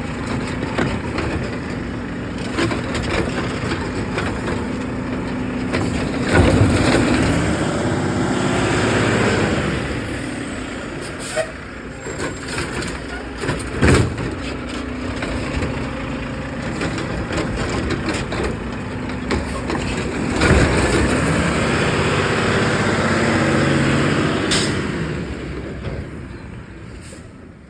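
Garbage truck lifting and emptying trash cans into its hopper, two cycles about fourteen seconds apart. The engine revs with each lift, a hydraulic whine rises over it, and there are sharp bangs as the cans are tipped and set down. The sound fades away near the end.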